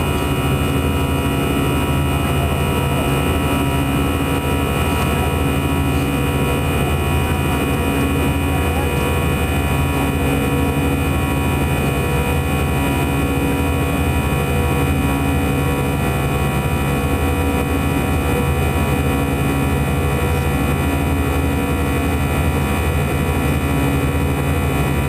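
Steady cabin drone of an Airbus A320 in flight, heard inside the cabin by a window near the engine: a constant jet-engine and airflow hum with a deep low rumble and several steady tones above it.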